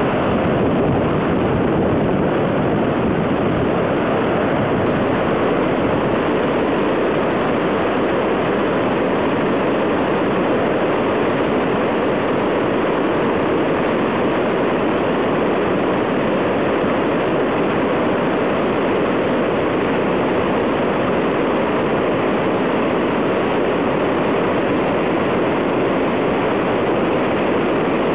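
Floodwater of the South Esk River roaring through Cataract Gorge: a loud, steady rush of white water.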